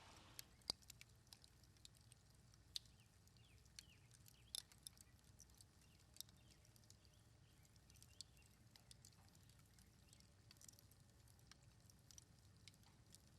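Faint outdoor ambience: scattered small clicks and ticks, the sharpest about half a second in, with a few faint bird chirps.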